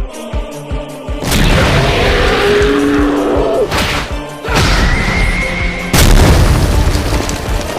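Dramatic music under heavy booming impact effects: three big hits, about a second in, about four and a half seconds in, and about six seconds in, each followed by a long loud rumble.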